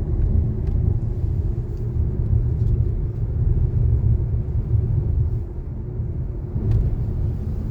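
Car driving along a road, a steady low rumble of engine and tyre noise.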